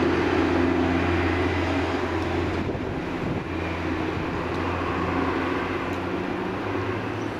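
A steady low machine hum: a strong drone with several held tones above it over an even hiss, starting abruptly and running unchanged.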